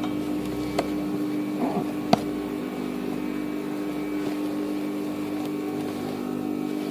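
Embroidery sewing machine's electric motor humming steadily, with no rhythm of stitching, and two light clicks about one and two seconds in.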